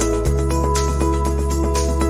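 Background music with a steady beat: sustained synth chords over a bass line that changes note about a quarter second in, with a light percussion stroke about twice a second.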